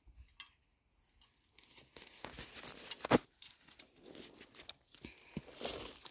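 Rustling and crunching in dry grass and dirt as a person steps and works around a freshly dug trap hole, with scattered small clicks and one sharp knock about three seconds in.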